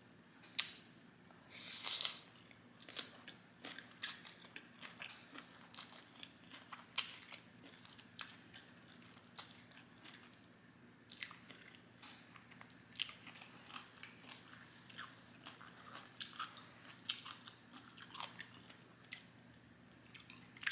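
Close-up chewing and crunching of crisp pickled yellow radish: sharp, irregular crunches and wet mouth clicks about one or two a second, with a longer crunch about two seconds in. A faint steady low hum lies underneath.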